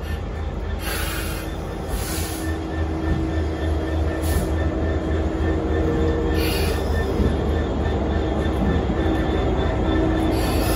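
Diesel locomotive running with a steady, slowly building engine drone and low rumble. Several short hissing bursts break in over it.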